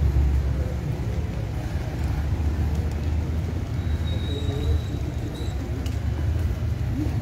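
Steady low rumble of vehicle engines and street traffic, with a faint thin high tone partway through.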